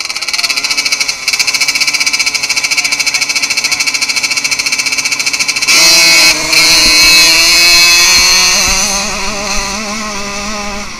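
KTM 50 SX minibike's 49cc two-stroke single engine revving with a fast, even buzz at the starting gate. About six seconds in the throttle opens and it gets suddenly much louder as the bike launches and accelerates, then eases off near the end.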